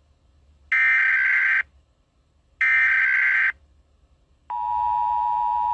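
Emergency Alert System SAME header data bursts: two short, harsh digital bursts about a second apart, then the steady two-tone EAS attention signal starting about four and a half seconds in.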